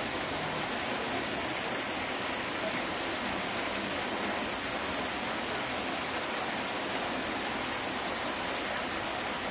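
Steady, even rushing of running water.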